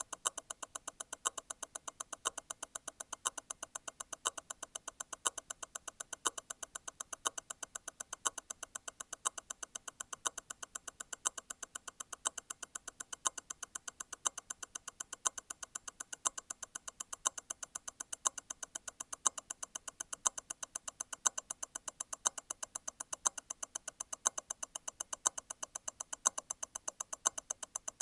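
Grand Seiko T0 Constant-force Tourbillon hand-wound movement ticking at 28,800 vibrations per hour, eight quick ticks a second. About once a second a louder tick stands out: the constant-force stop wheel letting go and striking again once every eight vibrations.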